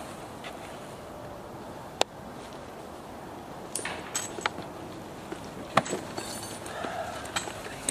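A flying disc golf disc strikes a tree with a single sharp knock about two seconds in, then scattered clicks and rustles of footsteps on the leaf- and wood-chip-covered ground.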